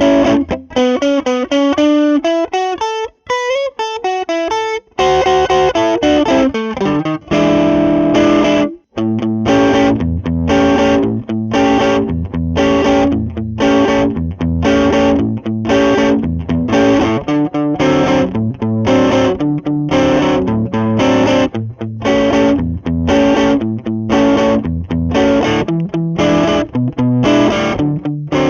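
Squier Jazzmaster electric guitar played through a Lovepedal Blackface Deluxe overdrive at light-to-moderate gain. It opens with a single-note phrase with gliding notes, then ringing chords. After a short break about nine seconds in, with the gain at noon, a rhythmic chord riff repeats steadily.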